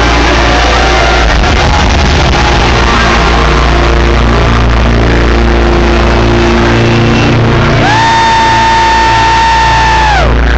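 Live band music played loud through a club PA, recorded close to full scale on a phone so that it runs dense and crowded. Near the end a high held note slides up, holds for about two seconds, then slides back down.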